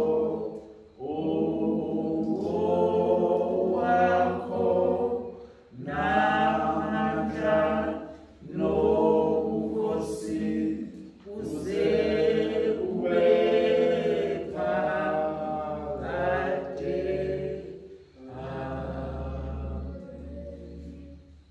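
Unaccompanied hymn singing, in phrases of a few seconds with brief pauses for breath, dying away just before the end.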